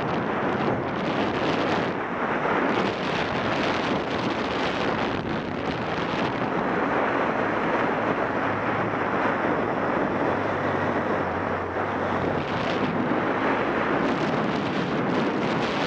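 Heavy wind buffeting on a motorcycle-mounted camera's microphone, with the Yamaha XTZ 750 Super Ténéré's parallel-twin engine running steadily underneath as the bike rides along.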